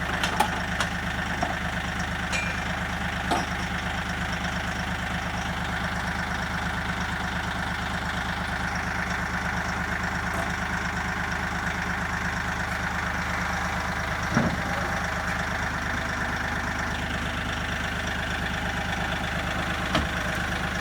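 Engine idling steadily, with a few brief knocks over it.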